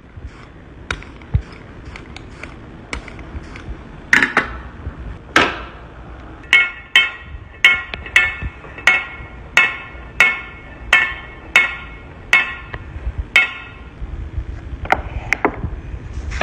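Letterpress print shop equipment clacking: a few light clicks, two heavier knocks, then a steady run of metallic strikes, about two or three a second, each with a short ring, before it slows to scattered knocks near the end.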